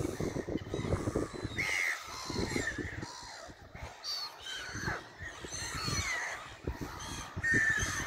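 A flock of black-headed gulls calling: many short, harsh cries overlap and come thick and fast, over bursts of low rumble near the start and again about two-thirds of the way through.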